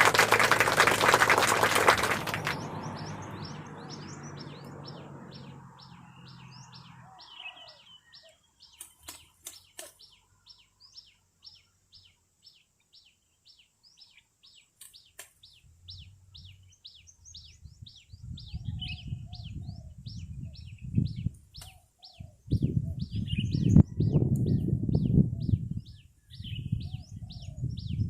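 A bird calling with a long, even run of short, high, falling chirps, about four a second. It starts with a loud rustle in the first two seconds, and irregular low rumbles of rustling or wind noise come in during the second half.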